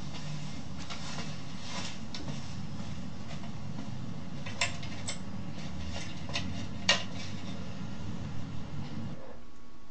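A plastic DVD case being handled, giving a few short sharp clicks and taps, over a steady low hum.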